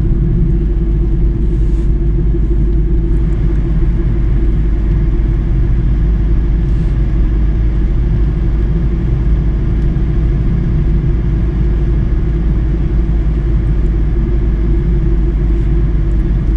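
A car driving at a steady speed: a loud, even, low rumble with no rise or fall in pitch.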